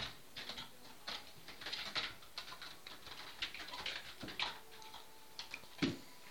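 A cat's claws scraping and catching on a carpet-covered scratching panel as it climbs, in short irregular scratchy bursts, then a thump near the end as it jumps down to the floor.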